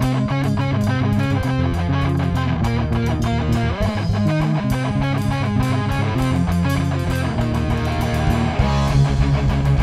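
Rock band playing an instrumental passage: electric guitar over steady bass notes and a fast, even drum beat, with no singing.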